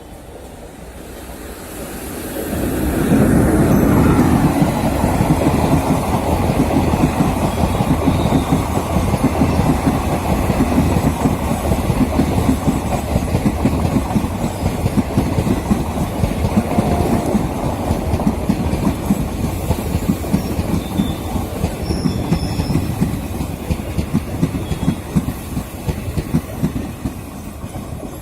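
A train running past, its wheels clattering rapidly over the rails; the sound builds over the first few seconds, stays loud, and eases slightly toward the end.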